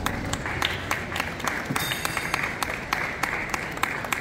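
Scattered applause: a few people clapping, a jumble of sharp claps at several a second.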